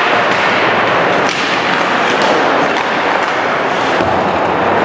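Ice hockey play in a rink: a steady rush of noise with several sharp knocks scattered through it, the clack of sticks and puck against boards and ice.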